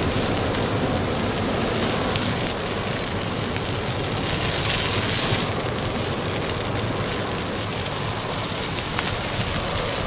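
Forest fire burning through trees and brush: a steady rushing crackle of flames, thick with fine pops, swelling briefly about five seconds in.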